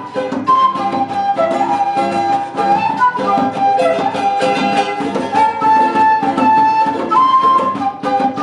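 Live band playing the instrumental introduction of a song: a melody of long held notes over strummed strings and a steady beat.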